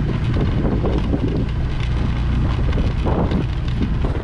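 Wind buffeting the microphone of a moving Honda scooter, over the steady low rumble of its small engine and the scrabble of its smooth tyres over a rough dirt track.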